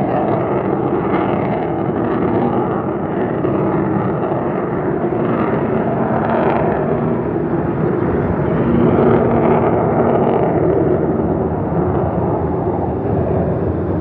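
Jet noise from an F-35A Lightning II's single Pratt & Whitney F135 afterburning turbofan: a loud, steady rushing rumble that swells slightly about nine seconds in.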